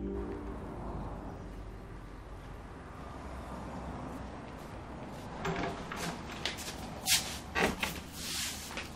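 Low steady background hiss, then from about five seconds in a run of knocks and clatters, the loudest about seven seconds in: a door being opened and shut as people walk in.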